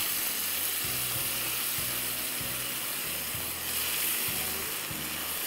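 Onion, tomato and sauce base frying in hot oil in a non-stick wok, a steady sizzle made sharper by a little water just added to the pan. A spatula stirs and scrapes through it with occasional light knocks.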